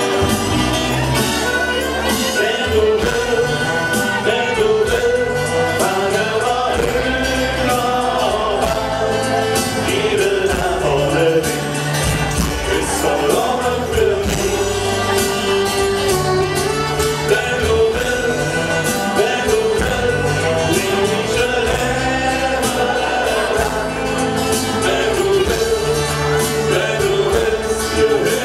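Live carnival band music: acoustic guitars, accordion, electric bass and keyboard playing a song over a steady repeating bass line, with singing.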